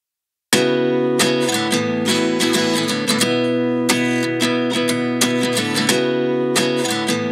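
Background music with strummed guitar chords, starting about half a second in after a moment of silence.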